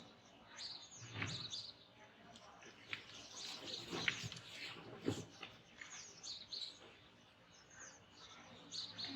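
Small birds chirping again and again, faint, with a few dull knocks and thumps about one, four and five seconds in.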